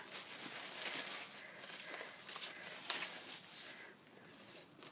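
Newspaper wrapping rustling and crinkling as it is pulled open by hand, dying down near the end.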